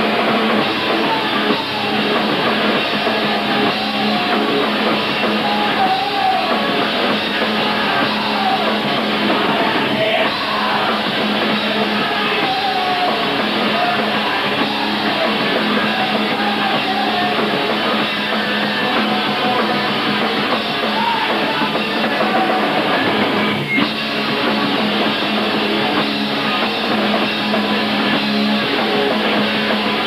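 Post-hardcore band playing live: loud, dense electric guitars, bass and a drum kit playing continuously.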